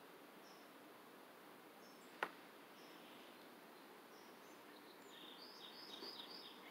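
Near silence of a quiet yard with faint distant bird chirps. A single sharp click about two seconds in. Near the end, a quick run of about six short, high bird chirps.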